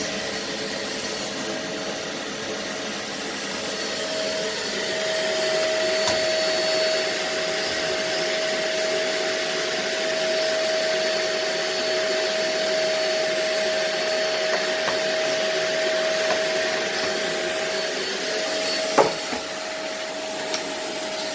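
Electric vacuum cleaner running steadily, a constant motor hum and rush of air with a high whine, as it sucks over plastic artificial grass. A single knock comes about two seconds before the end.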